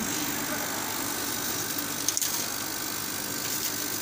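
CO2 laser cutting machine running while it cuts paper: a steady mechanical hum and hiss from its exhaust and air-assist blowing, with a brief click about two seconds in.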